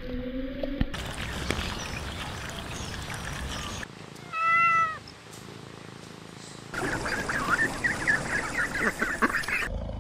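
A domestic cat meows once, about four and a half seconds in, in a single short call that arches slightly in pitch. Before and after it there are stretches of crackly, rustling noise with scattered clicks.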